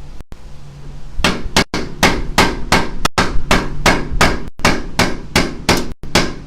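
Hammer blows in a rapid, steady run, about four strikes a second, starting about a second in.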